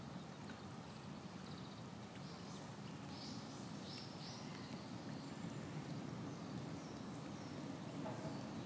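Steady outdoor background noise, with a few faint, short high chirps about two to four and a half seconds in.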